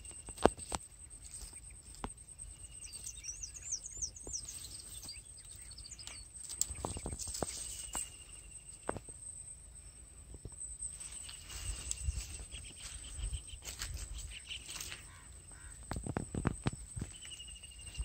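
Riverside outdoor ambience: a bird gives a short high whistled call every few seconds, with a brief warbling trill about three seconds in, over a steady high whine. Scattered clicks and taps, and low rumbles of wind on the microphone.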